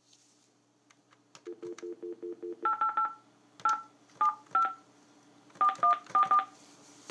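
Telephone line: a few handset clicks, then a dial tone that comes in about six quick stuttering pulses. Touch-tone (DTMF) keypad beeps follow, each a short two-note tone, dialing a toll-free number in quick runs of several digits. A faint steady line hum runs underneath.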